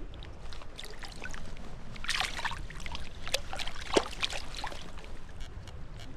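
Water splashing and trickling as a trout shifts in a landing net held in a shallow creek, with a busy run of small splashes in the middle and the sharpest splash about four seconds in, over a steady low rumble.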